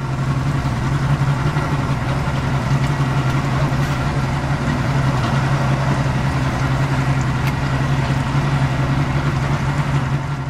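An engine idling steadily, a deep, even hum with no change in speed.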